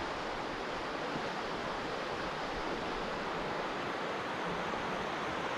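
River water rushing over shallow rocky riffles: a steady, even rush.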